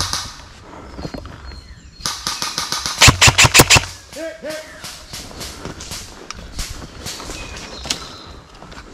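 Airsoft rifle firing rapid full-auto bursts: a short burst right at the start, then a longer one about two seconds in that ends in several much louder shots. Fainter scattered shots follow.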